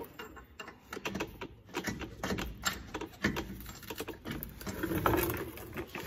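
Irregular light clicks, taps and rustling of gloved hands working under an LS engine, holding the starter motor in place and starting its mounting bolt by hand.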